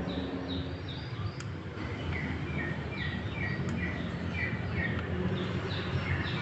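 A bird chirping in runs of short notes that fall in pitch, about three a second, over a steady low background rumble.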